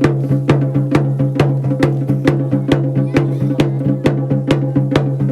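Music: fast, even drumming, about two to three sharp strikes a second, over a steady low drone.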